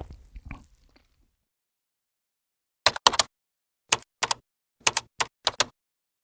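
Computer keyboard keys tapped in short irregular runs, about nine clicks in all, starting a little under three seconds in. The tail of an earlier sound fades out in the first second.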